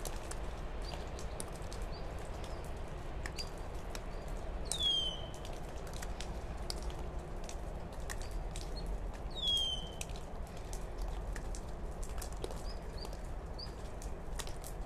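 Steel bonsai scissors snipping small roots, a scatter of light clicks, over a low steady background hum. Birds chirp through it; two louder descending calls, about five seconds apart, are the loudest sounds.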